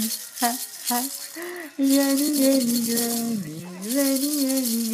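A voice singing a tune to a baby, a few short notes and then long held ones that dip and rise again, with a baby rattle shaken in rhythm alongside.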